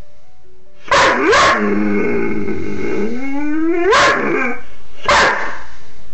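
Doberman vocalizing: two short barks, then a drawn-out grumbling call that rises steeply in pitch, followed by two more barks.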